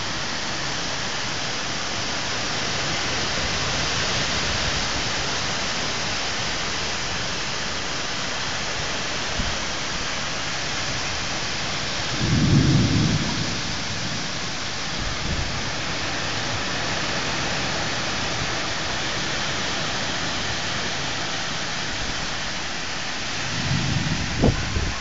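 Steady heavy rain falling, an even hiss, with two brief low rumbles, one about halfway through and one near the end.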